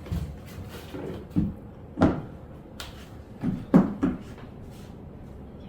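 About six irregular knocks and light clicks from a pair of six-inch platform high-heel shoes being handled and moved, the loudest about two seconds in.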